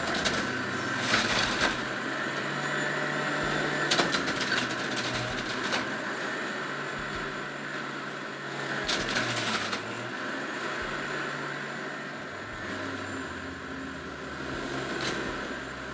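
Breville BJE510XL centrifugal juicer motor running steadily, its pitch dipping as it takes load, with several short bursts of grinding as orange pieces are pushed down the feed chute onto the spinning cutting disc.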